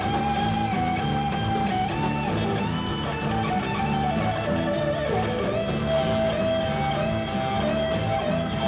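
Live rock band with an electric guitar playing a lead solo of long held notes that bend up and down in pitch, over an electric bass line and band backing.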